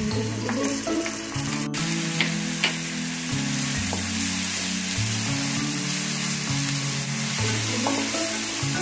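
Sliced onions sizzling in hot oil in a non-stick kadai while a spatula stirs them, with a couple of sharp taps against the pan about two seconds in.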